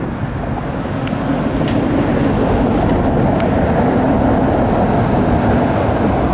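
Loud, steady rumble of heavy vehicles crossing a bridge, growing slowly louder, with a few faint high squeaks.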